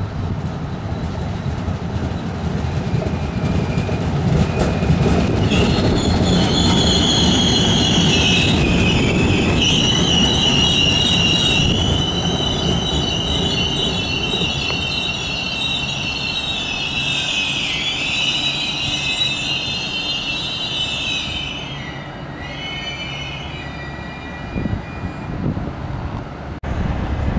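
A train rolling by with its wheels squealing: a high squeal starts about six seconds in, wavers and sags in pitch, and dies away after about twenty seconds, over the low rumble of the rolling train.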